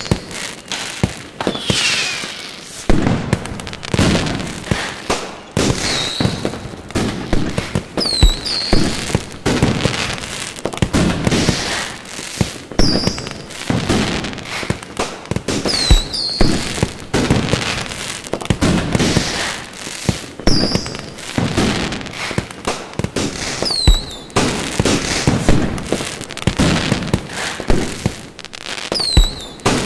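Fireworks display: a continuous, irregular barrage of loud bangs and booms from aerial shells, with several short whistles scattered through it.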